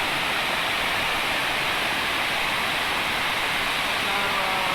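Waterfall rushing steadily: a dense, even wash of falling water.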